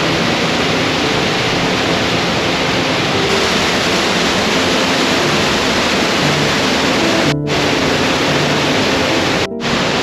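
Loud, steady rush of a waterfall pouring over a spillway dam, dropping out for an instant twice near the end.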